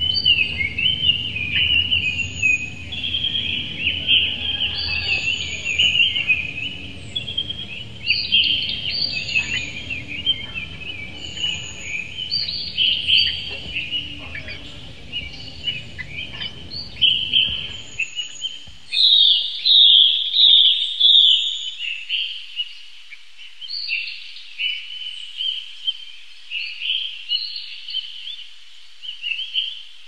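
Caged lovebirds chattering in rapid, high-pitched chirps and squeaks. A low hum underneath stops about two-thirds of the way through.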